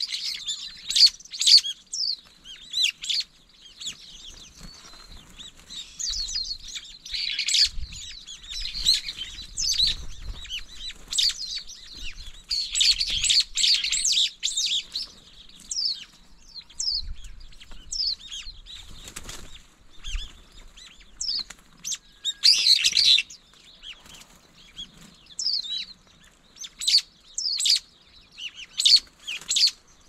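Brown-eared bulbuls and Japanese white-eyes calling: a run of sharp, quickly sweeping high calls and chirps, thickening into dense bursts of chatter several times.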